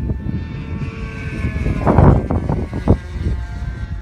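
Super Tigre G90 two-stroke glow engine with a tuned pipe, driving a model aerobatic plane high overhead: a thin, steady, high-pitched whine. Gusts of wind rumble on the phone's microphone, the loudest about two seconds in.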